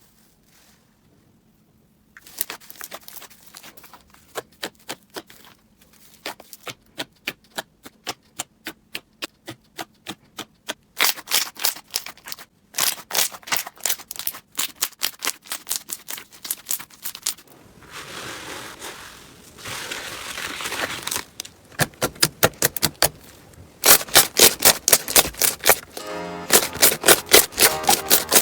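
Slime being squeezed and pressed, crackling and popping in quick trains of sharp clicks. It opens with about two seconds of near silence, turns to a softer hissing squish a little past the middle, and ends with louder, denser pops.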